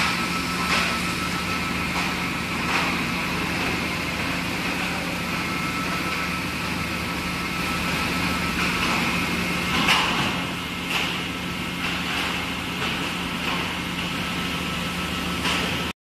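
Flight-type (rack conveyor) commercial dishwasher running: a steady low hum with a thin high whine over it. Several short clatters of plastic trays and dishes come through it, the loudest about ten seconds in.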